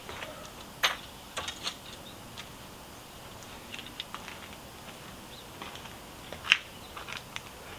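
Scattered metallic clicks and clinks of hand tools being handled, including a Torx cross wrench, with a few spaced knocks and the loudest clink about six and a half seconds in.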